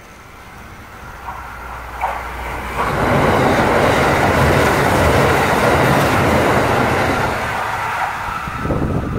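Kintetsu limited express electric train approaching and passing close by at speed over a short steel girder bridge, its wheels and running gear loud from about three seconds in, then fading as it recedes near the end.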